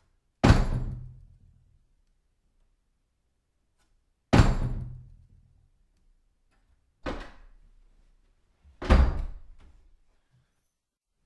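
A door swung hard against its backstop, four bangs a few seconds apart, each dying away over about a second with a low rumble; the third is softer than the others.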